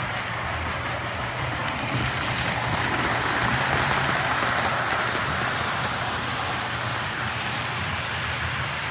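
Model trains running on three-rail O-gauge track: a steady rumble of wheels and motors with a low hum beneath. It swells louder from about two to six seconds in as a freight train passes close by.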